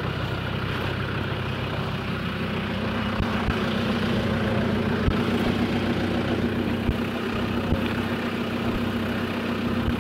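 An off-road 4x4's engine running steadily at low revs, with a few faint low knocks.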